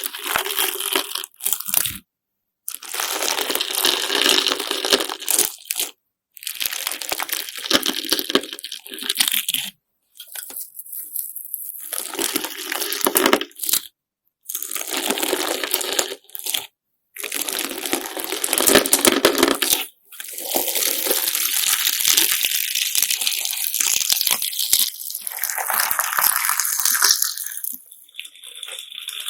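Slime mixed with glass sand and sequins being squeezed and kneaded by hand, giving a dense, gritty crunching. It comes in several short takes, each cut off abruptly into silence before the next begins.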